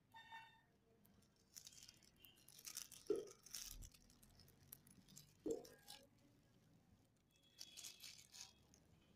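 Faint crinkling and rustling of clear plastic gloves as the hands move over the face, in scattered short bursts, with two soft knocks about three and five and a half seconds in.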